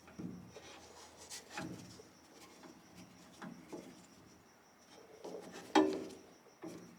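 Phillips-head screw being driven in with a screwdriver to fasten a tool box drawer slide rail: faint rubbing and scraping with scattered light clicks, and one sharper click near six seconds in.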